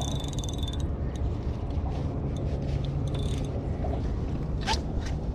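Small spinning reel giving a fast, even run of mechanical clicks at the start, and again briefly about three seconds in, while a fish is on the light micro-jigging rod. Under it runs a steady low rumble.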